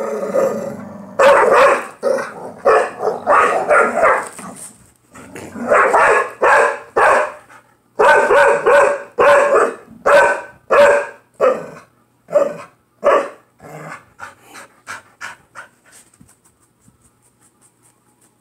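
Pit bulls barking and growling in rough play over a toy, in rapid runs of barks. They thin out and get fainter from about 12 seconds in, then stop near the end.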